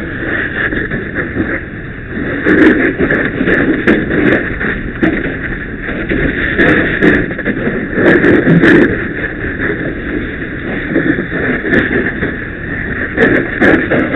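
Fire hose stream hitting burning debris, a steady loud rushing noise with scattered sharp cracks from the fire.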